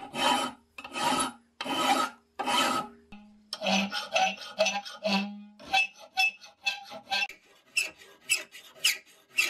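Hand files rasping on a forged iron trigger guard clamped in a vise: about four long, even strokes of a large flat file, then shorter, quicker strokes of a slim round file with a low tone sounding under them, then quick short flat-file strokes. The filing is thinning the neck of the guard.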